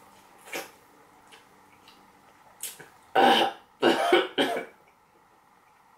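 A woman coughing and clearing her throat: one loud cough about three seconds in, then a quick run of three more a moment later. A couple of faint clicks come before it.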